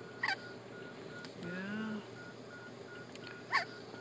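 A premature newborn's hiccups: two short, high squeaks that fall in pitch, about three seconds apart.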